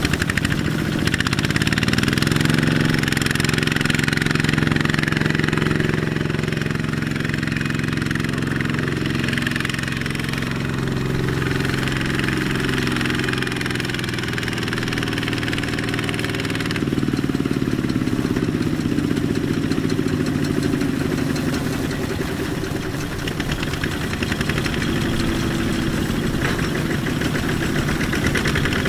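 Two-wheel walking tractor's single-cylinder diesel engine running under load as it hauls a loaded rice trailer through a muddy field. The engine picks up speed about a second in and holds a steady note, which shifts in pitch about halfway through.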